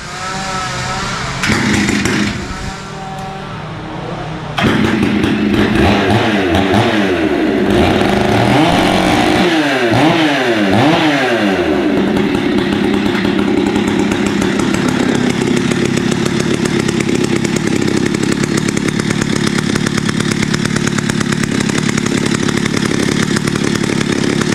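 Stihl 084, a big two-stroke chainsaw fitted with a noisy 'bark box' muffler, being started. After a short sputter it catches about four and a half seconds in, is revved up and down for several seconds, then runs steadily.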